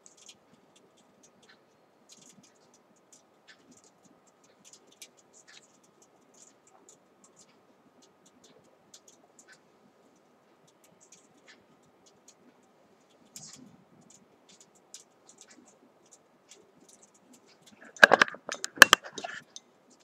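Handling noise: scattered faint clicks and scratches, then a short cluster of loud knocks and rubbing near the end as the camera is picked up and moved in close.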